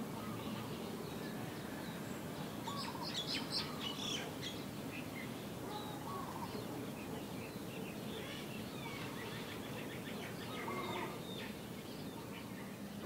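Small birds chirping and calling in scattered bursts of quick notes, busiest a few seconds in and again past the middle, over a steady low background noise.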